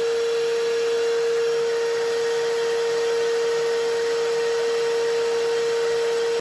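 Canister vacuum cleaner running steadily: rushing air under a strong, steady whine. It cuts off abruptly at the end.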